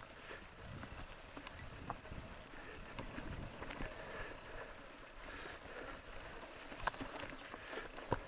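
Mountain bike rolling slowly over a rough grassy trail: irregular clicks, knocks and rattles from the bike as its tyres go over bumps and stones.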